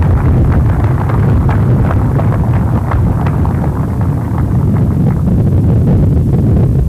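Wind buffeting the microphone: a loud, steady low rumble that sets in suddenly, with scattered short sharp ticks over it.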